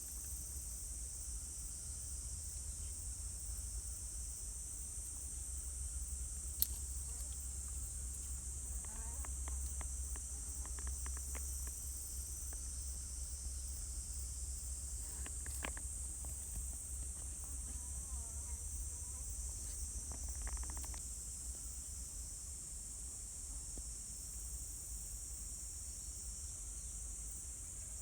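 Steady high-pitched insect chorus over a low rumble, with a few faint clicks scattered through it.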